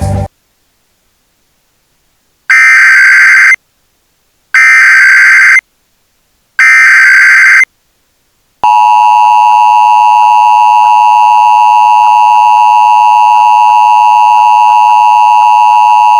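Emergency Alert System tones: three loud one-second bursts of digital header data (the SAME header), then the steady two-tone EAS attention signal, held for about eight seconds.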